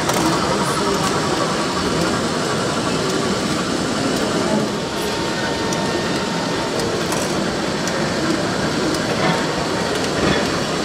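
Model train running on a layout: a steady rattle from its small motor and wheels on the track, with scattered small clicks, over the dense background noise of a busy exhibition hall.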